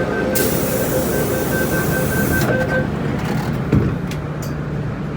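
MTR Metro-Cammell M-Train's door-closing warning beeping rapidly, with a loud hiss through most of it. The doors then shut with a knock about three-quarters of the way through, followed by a steady low hum.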